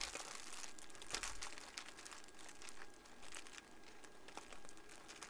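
Light crinkling with scattered small clicks: a hand rummaging through pieces of plastic heat-shrink tubing to find a long, thin length.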